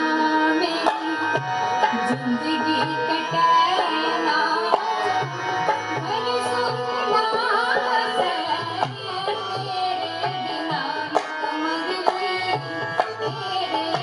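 Haryanvi ragni folk song: a woman's solo singing voice over a hand drum playing a repeating beat, with held instrumental notes underneath.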